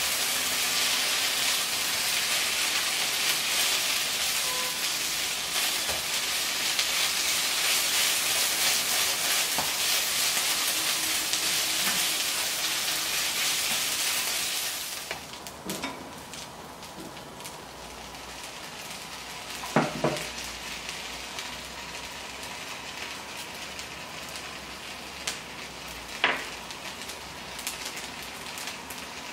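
Garlic fried rice sizzling in a nonstick wok as it is stirred and tossed with a spatula. The sizzle drops abruptly to a quieter hiss about halfway through, and a few sharp knocks follow.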